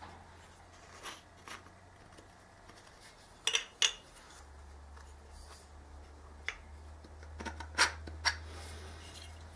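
A few short, sharp clicks and light taps of small parts and tools being handled on a workbench, the loudest a pair about three and a half seconds in, over a steady low hum.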